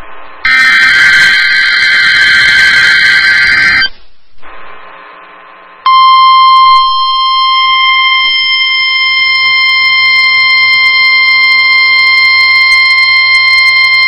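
NOAA Weather Radio test signal: a burst of SAME digital header data tones for about three and a half seconds, then after a short pause a steady 1050 Hz weather radio warning alarm tone that starts about six seconds in and holds to the end.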